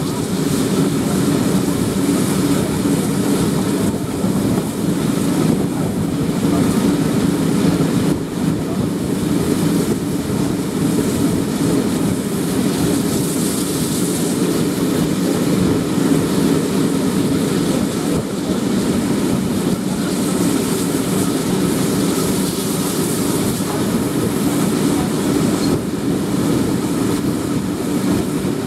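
Passenger train running steadily at speed, heard from an open carriage window: a continuous rumble of wheels on the rails with air rushing past.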